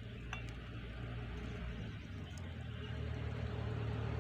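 Warm sugar syrup poured from a steel saucepan into a glass bowl of fried gulab jamuns: a soft, steady trickle that grows a little louder, over a steady low hum.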